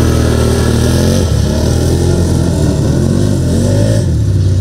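ATV (quad bike) engines running and revving off-road, their pitch rising and falling over a steady low hum.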